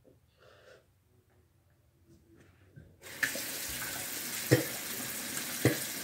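Bathroom sink faucet turned on about halfway through, water running steadily into the basin, with two short sharp sounds over it. The first half is quiet apart from a few faint sounds.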